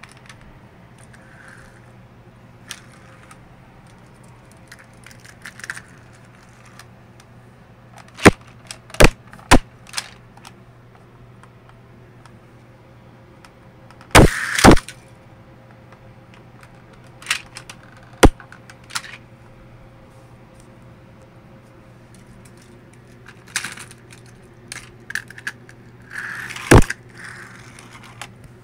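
Sharp clicks and clacks of metal die-cast toy cars and a plastic toy track being handled and knocked together, in scattered single hits and short clusters: three or four about eight to ten seconds in, a tight pair near the middle, and a run near the end. A faint steady hum lies underneath.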